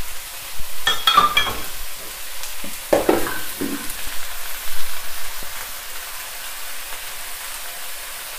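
Pak choi sizzling steadily as it stir-fries in a wok, the last of its cooking water boiling off, with a metal spatula scraping and clinking against the wok about a second in and again around three seconds in.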